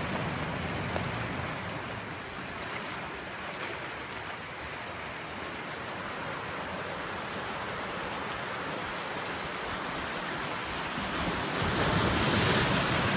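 Sea surf washing and breaking against a rocky, cobbled shore as a steady rush of noise, with a wave crashing louder near the end.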